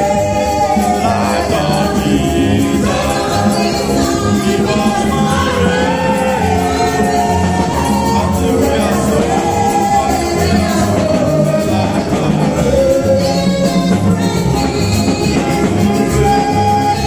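Gospel singing: a woman's voice amplified through a microphone and PA, over instrumental backing with a steady beat.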